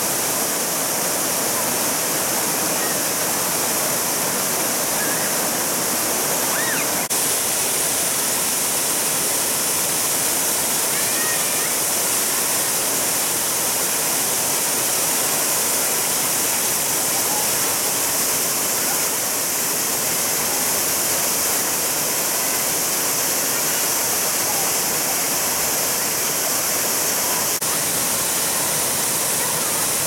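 Small waterfall pouring over rock ledges into a shallow stream: a steady rushing splash of falling water.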